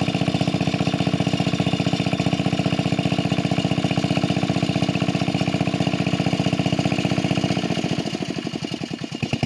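A small engine running steadily with an even, rapid beat of about ten pulses a second; late on the beat turns uneven and a little quieter.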